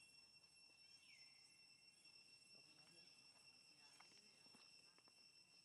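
Near silence with a faint, steady, high-pitched insect drone and a few faint soft ticks about halfway through.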